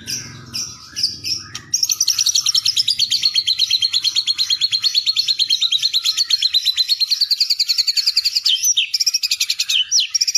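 A bird singing: a few short high chirps, then about two seconds in a long, very fast trill of rapidly repeated high notes that wavers a little in pitch and keeps going.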